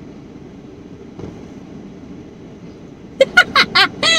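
A burst of laughter: five quick, loud laughs in a row, starting about three seconds in. Before it there is only a steady low rumble inside the car cabin.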